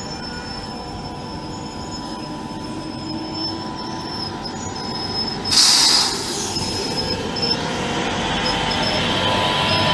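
Frecciargento high-speed electric train rolling slowly past along the platform, its wheels squealing in steady high tones over a running rumble that grows louder as the carriages draw level. A brief, loud hiss sounds about five and a half seconds in.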